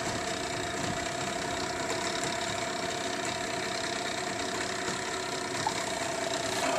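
An engine running steadily at an even speed, with a constant mid-pitched hum.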